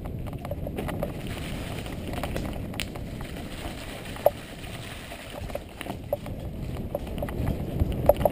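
Mountain bike rolling down a dirt singletrack: a steady rumble from the tyres and wind on the microphone. Sharp clicks and rattles from the bike come over bumps, one loud one about four seconds in and a few more near the end.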